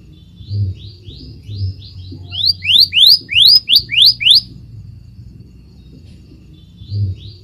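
Scarlet minivet singing: a phrase of about a dozen short rising whistles, roughly three a second, growing louder, then a pause of a couple of seconds. Two low thumps are heard near the start.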